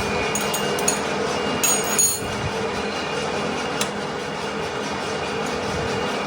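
Manual metal-turning lathe running with a steady hum, with several sharp metallic clinks in the first two seconds and one more at about four seconds.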